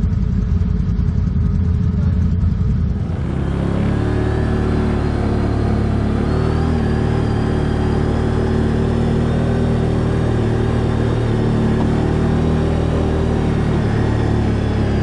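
ATV engine running steadily at a held speed, with a low rumble and a faint high whine. About three seconds in, the sound changes abruptly to a clearer, steady engine drone.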